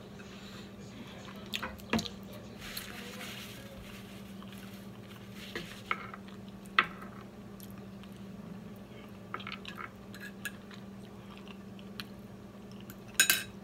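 Close-up eating sounds: wet chewing, lip smacks and mouth clicks while eating fried chicken, with a few sharper clicks, the loudest near the end. A steady low hum runs underneath.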